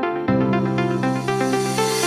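Electronic background music: a synthesizer melody of quick, short notes over held bass chords, with a hiss that rises toward the end.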